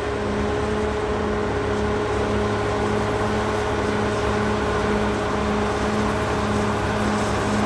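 Caterpillar D6R XL bulldozer's diesel engine running steadily at high revs, with a lower hum pulsing about twice a second.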